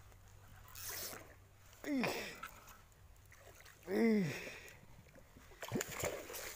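A hooked mangrove jack thrashing and splashing at the water's surface beside the boat. Two drawn-out wordless vocal exclamations, each rising then falling in pitch, come about two and four seconds in and are the loudest sounds. A sharper burst of splashing follows near the end.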